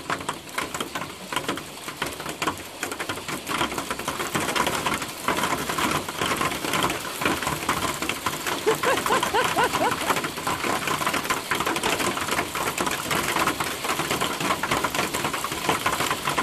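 Heavy fall of large hailstones, a dense, continuous clatter of countless impacts. It grows louder about four seconds in.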